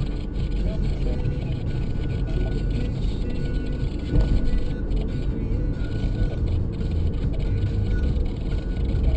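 Steady road and engine rumble of a moving car, heard from inside the cabin, with music playing faintly underneath and a brief thump about four seconds in.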